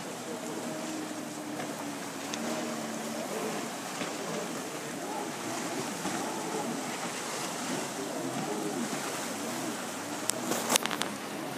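Distant jet ski engine droning across the lake, its pitch wavering up and down, over the wash of choppy waves. A few sharp knocks near the end.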